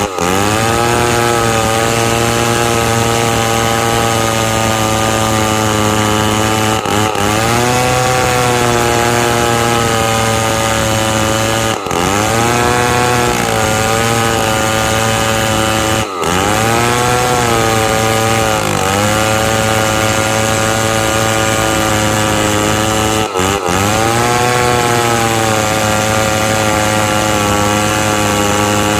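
Chainsaw running at high speed while cutting wood, its engine pitch sagging and recovering several times as the chain loads up in the cut.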